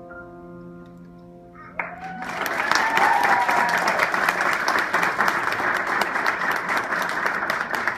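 The last held chord of a piano accompaniment dies away, and about two seconds in a small audience breaks into loud applause, with a cheer soon after.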